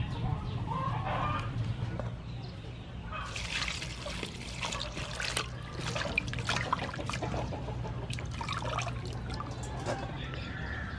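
Water splashing and dribbling as hands swish and rinse broccoli florets in a stainless-steel bowl of water, starting about three seconds in.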